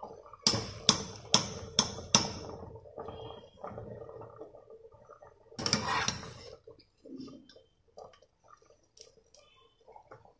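Stainless-steel wire strainer ladle knocked against a pot five times in quick succession, then a short scraping, sloshing rush as it scoops par-boiled basmati rice out of the boiling water.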